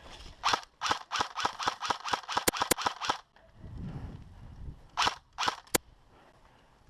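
Airsoft gun firing a rapid string of sharp shots, about five a second for nearly three seconds, then three more shots about two seconds later.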